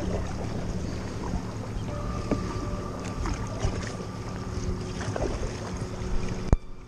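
Water lapping against the hull of a sit-on-top kayak on calm sea, with wind on the microphone. A single sharp click near the end.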